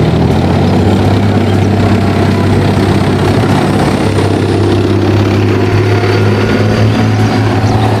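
Main battle tanks driving past in a column, their heavy engines running with a steady low hum under a dense, even rumble.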